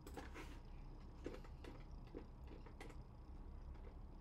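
Quiet room tone with a few faint, scattered clicks of a computer mouse.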